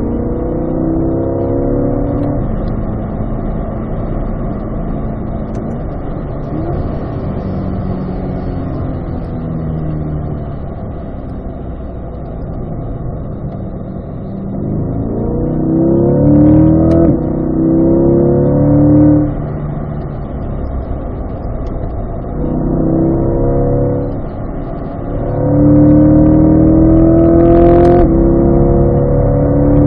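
Chevrolet Corvette's V8 heard from inside the cabin on a track lap: the engine pulls hard several times, its pitch climbing, with quieter stretches between as it eases off for corners. A brief break at a gear change cuts into the climb about 17 s in and again near the end.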